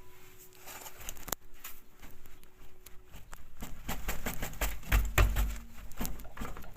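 Clicks and low knocks from a Lada Largus front wheel and steering linkage being rocked by hand to check the tie rod end for play. There is one sharp click about a second in, then a run of clicks and thumps through the second half, loudest about five seconds in.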